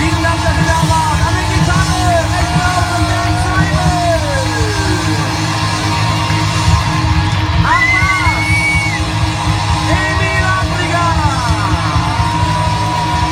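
Live rock band playing an upbeat song, with voices yelling and singing over the music.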